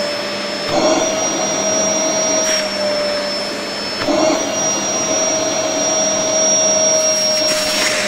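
INGCO 2000 W multi-cyclone canister vacuum cleaner running at full speed with its floor nozzle on a surface: a steady motor whine over the rush of sucked air. The whine steps up slightly in pitch about a second in and again about four seconds in.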